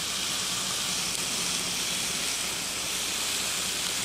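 Pork chops sizzling steadily on a hot Blackstone flat-top griddle, an even high hiss, with a faint low hum underneath.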